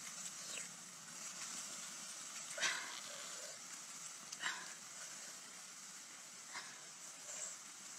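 Meat grilling over charcoal embers: a steady sizzling hiss, with a few short, louder bursts as sauce is dabbed onto the rats.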